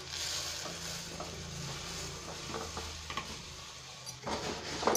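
Puffed rice poured from a steel plate into a steel pot of hot jaggery syrup, a steady rustling hiss that fades about four seconds in, with a few light ticks.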